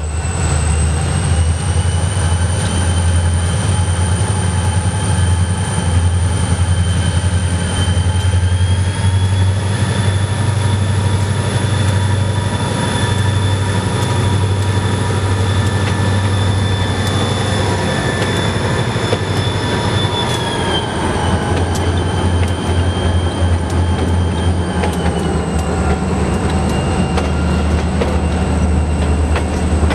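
Pan Am Railways diesel freight locomotives working hard under load as they pass close by, with a heavy steady low engine rumble and a high whine. The whine drops in pitch about two-thirds of the way through and again a few seconds later as the units go by, then the boxcars keep rolling past.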